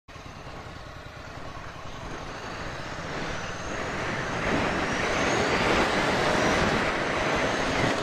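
Ducati Scrambler Sixty2's air-cooled L-twin engine pulling away and accelerating, getting steadily louder, with wind rushing on the microphone as speed builds.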